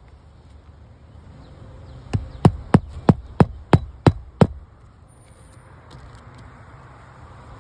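Eight sharp knocks in quick succession, about three a second, starting about two seconds in.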